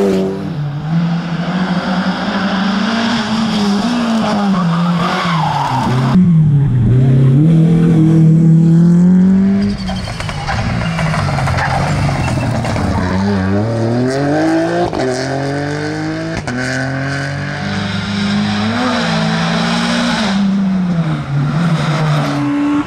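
Rally car engines revving hard as the cars pass on a tarmac stage, one after another, among them a Ford Fiesta Rally4. The pitch climbs and drops again and again with gear changes and lifts off the throttle.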